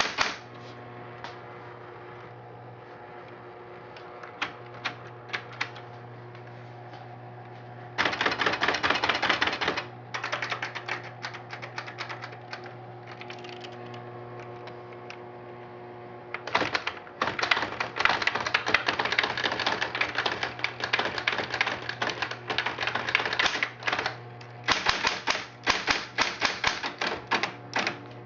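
Smith Corona Electric 12 electric typewriter typing, its motor humming steadily under the key strikes. A few scattered keystrokes at first, a short burst of fast typing about eight seconds in, then a long run of fast typing from about sixteen seconds that breaks into separate strikes near the end.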